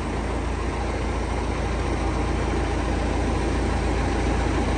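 Heavy vehicle engine idling steadily, a continuous low drone with no change in speed.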